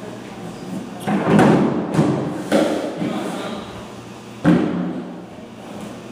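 About four dull thuds and knocks, each with a short echo, with the loudest one or two seconds apart, over a low steady room hum.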